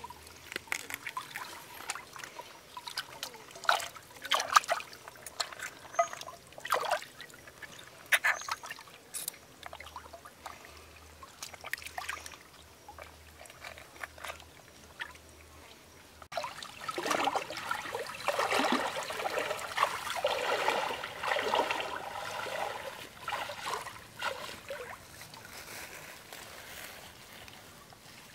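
Shallow stream water splashing and trickling as hands wash and clean a plucked chicken in it. Scattered sharp splashes at first; after an abrupt change about sixteen seconds in, a louder, denser stretch of water noise.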